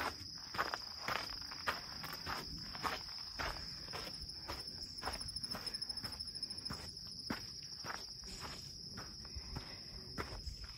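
A hiker's footsteps on a trail, irregular, about one to two steps a second, over insects trilling steadily at a high pitch.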